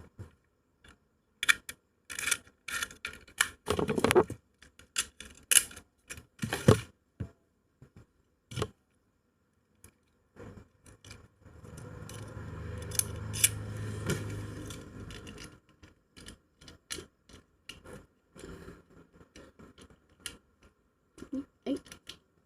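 Hard plastic and metal Beyblade parts clicking and rattling as they are handled and fitted together, with a steady low hum for about four seconds midway.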